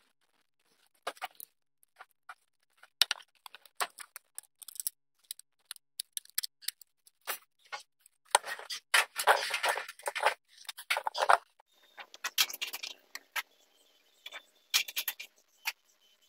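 Irregular light clicks, taps and knocks of small metal parts and wooden pieces being handled and set down on a wooden workbench, with a busier stretch of rubbing and knocking about halfway through.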